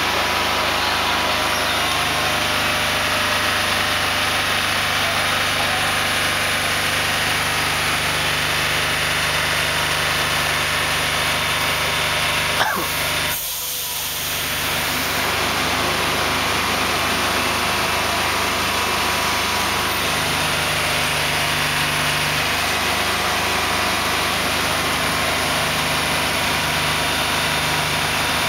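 Diesel engine of a heavy-haul multi-axle transporter running steadily at constant pitch as the loaded trailer moves slowly. There is one sharp click about thirteen seconds in.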